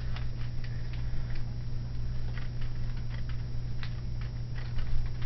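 Irregular small clicks and crackles from gloved hands smoothing a tacky resin-soaked wrap over a prosthetic socket, over a steady low hum.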